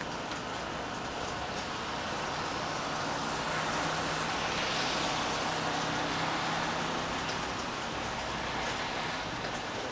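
Steady rain falling, with scattered drips. A car passes on the wet road, its tyre hiss swelling from about three seconds in and fading again near the end.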